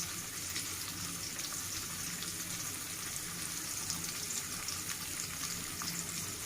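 Hilsa fish pieces shallow-frying in hot mustard oil in a wok, a steady sizzle with many small crackles as the oil bubbles around the fish.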